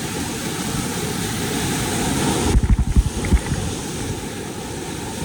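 Steady rush of whitewater pouring through a dam gate. About halfway through the sound turns suddenly duller, with a few low thumps on the microphone.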